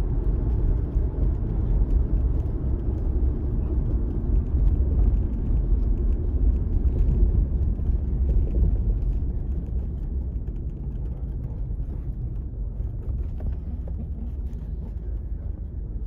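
Steady low rumble of road and engine noise heard from inside a moving car's cabin, getting somewhat quieter in the second half.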